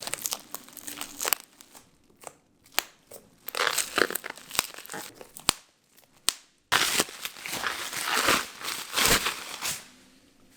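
Crinkling and rustling of handled material in irregular bursts, with scattered sharp clicks; it turns suddenly louder and denser about two-thirds of the way in.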